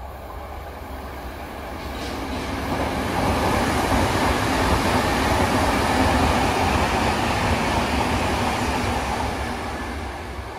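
London Underground Metropolitan line S8 stock train running past, a steady rush of wheels on rail over a low rumble. It swells to its loudest a few seconds in and fades as the train draws away.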